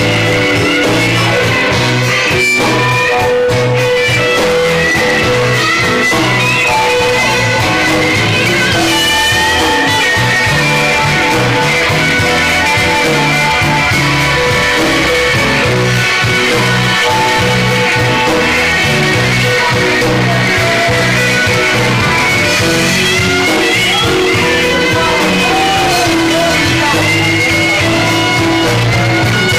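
Live blues band playing a slow blues, loud and steady, with electric guitar, bass, drums and harmonica.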